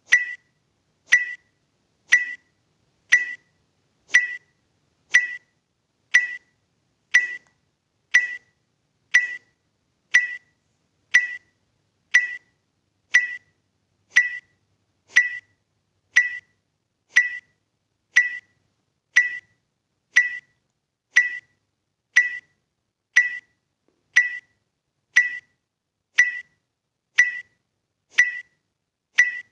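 A short, sharp electronic tick or beep, about once a second: a timer pacing the kapalabhati breath strokes. Nothing is heard between the ticks.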